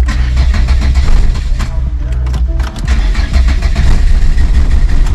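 Volvo 480's four-cylinder petrol engine being started and running, on a car whose engine tends to die almost immediately after starting; a timing fault is suspected.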